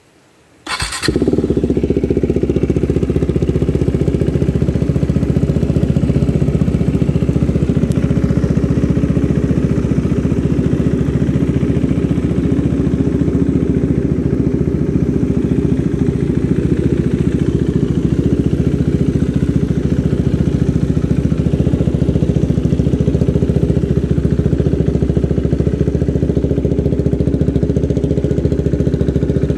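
KTM Duke 390's single-cylinder engine starting up about a second in, then idling steadily through a decatted custom stainless mid pipe with no resonator and a stock muffler with its dB killer removed.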